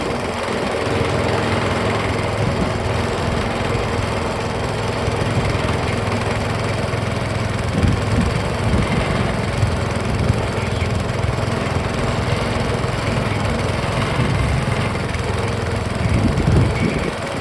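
Small gasoline engine of a trommel wash plant running steadily. It gets louder about a second in and surges briefly near the middle and again just before the end.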